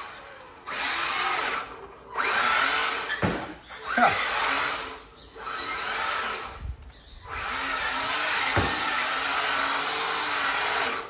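Brushed electric motor and drivetrain of a Losi 22S short-course RC truck whining as it is driven hard on a concrete floor, in about five bursts of throttle with short pauses, the pitch rising and falling. A few sharp knocks stand out, one about three seconds in, one about four seconds in and one near the end.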